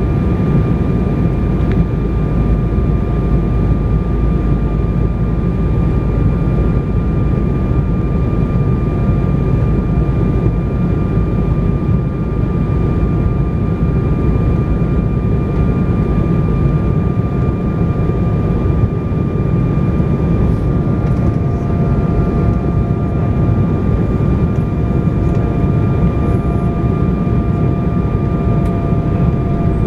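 Jet airliner cabin noise: a steady, even rumble of engines and rushing air, with a faint steady whine at a few fixed pitches over it.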